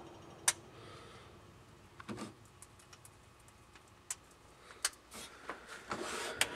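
A few faint, sharp clicks and light knocks from handling at an open oven, over a low steady background: a single click about half a second in, a softer knock around two seconds, and more small clicks later on.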